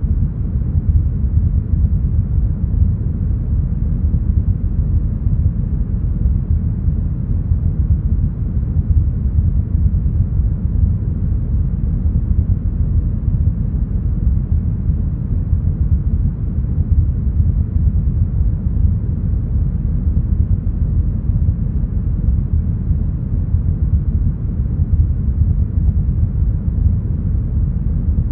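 Deep, smoothed brown noise: a steady, unchanging hiss with its weight in the bass, softening toward the treble and with nothing above the upper mids.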